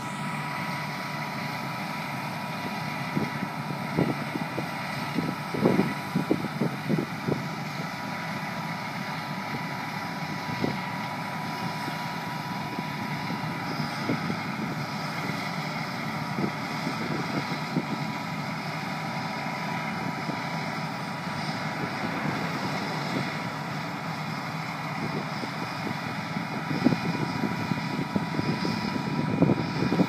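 John Deere W650 combine harvester running steadily while harvesting barley: a constant engine and threshing drone with a steady whine through it. Wind buffets the microphone in gusts a few seconds in and again near the end.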